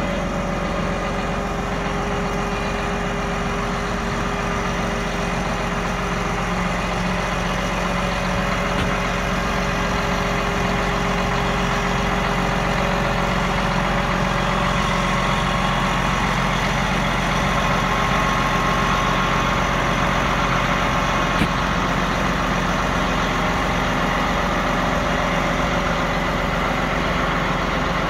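John Deere 8295RT tracked tractor's six-cylinder diesel engine running steadily at low revs as the tractor moves slowly on its rubber tracks.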